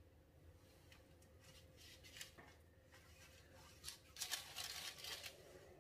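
Faint brushing and scraping of a pastry brush on the oiled side wall of a parchment-lined springform baking pan, a few scattered strokes, then a denser run of strokes about four seconds in.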